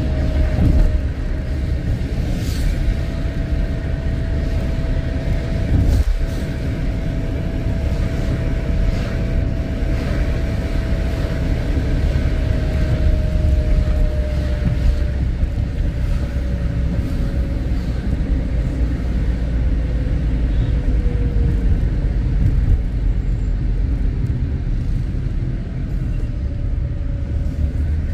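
A car driving in city traffic: steady engine and road rumble, with a thin whine that holds its pitch and then falls slowly past the middle. There is a brief knock about six seconds in.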